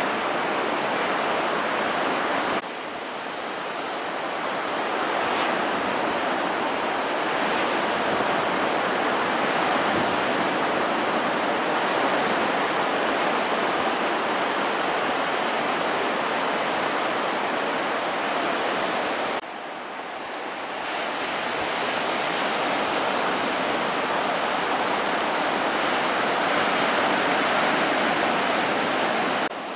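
Ocean surf: a steady rush of small waves breaking and white water washing in. The level drops suddenly twice, about two and a half seconds in and again near nineteen seconds, then builds back.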